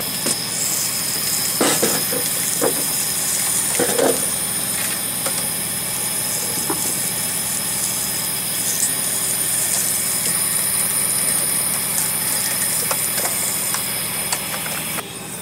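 A small fishing boat's engine and net hauler running steadily while a gillnet is hauled in, with a steady hiss, a low hum and a high-pitched tone throughout. A few short knocks come through in the first four seconds.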